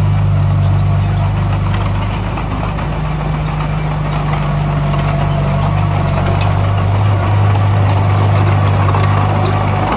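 Diesel engine of heavy construction machinery running steadily with a deep, even drone, with light metallic clatter over it.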